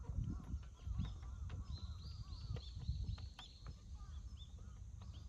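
Birds calling from the trees around the green: many short arching chirps, thickest in a quick run through the middle, over a low fluctuating rumble.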